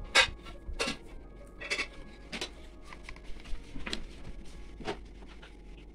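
Hard plastic knocks and clicks, about six spread over a few seconds, the loudest just after the start: white PVC pipe pieces being pushed into and pulled from a PVC elbow fitting on top of an external aquarium filter canister.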